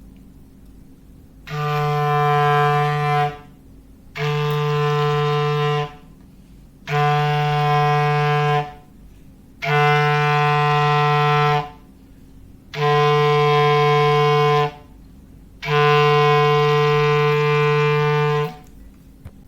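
Foghorn sound effect: six low blasts on one unchanging pitch, each about two seconds long with about a second between them, the last a little longer.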